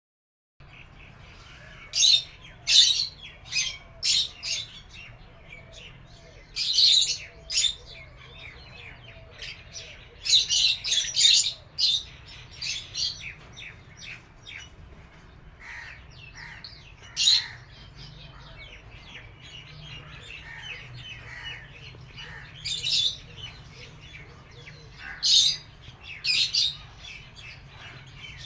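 Lovebirds squawking harshly in clusters of several loud calls, with quieter chirping in between: alarm at a snake raiding their nest.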